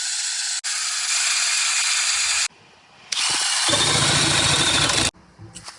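Power drill running in three bursts, boring the hole for a deadbolt through a door, with the cutter biting into the material in the last burst. A few sharp clicks near the end.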